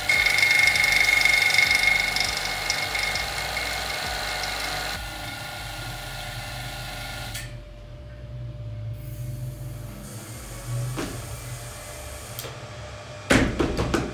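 High-voltage plasma discharge in a vacuum tube, fed by a hand-wound transformer: a steady high-pitched electrical whine with a buzz, loudest in the first few seconds, then quieter and changed about five seconds in. A quick cluster of sharp clicks near the end.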